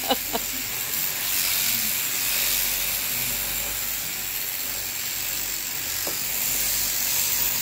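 Electric sheep-shearing handpiece, driven from an overhead motor through a jointed down tube, running steadily as its comb and cutter clip through a ewe's thick fleece: a continuous buzzing whir with a strong high hiss.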